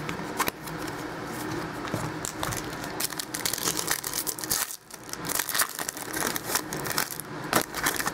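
Foil wrapper of a trading-card pack crinkling and tearing in the hands as it is opened, a run of short crackly rustles with a brief lull about halfway.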